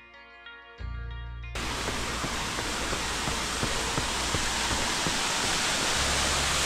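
A short stretch of music, then, about a second and a half in, the steady rush of a small waterfall cascading down rocks beside the path.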